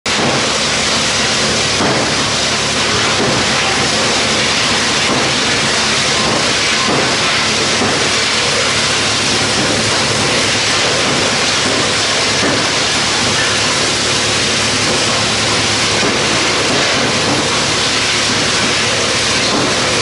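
Large electric drum wood chipper (YBX218, 110 kW main motor) running: a loud, even noise with a faint steady hum under it.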